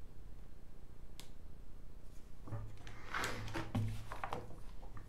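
A single light click about a second in, then about two seconds of rustling and clicking from handling a plastic miniature sprue and magazine on a desk.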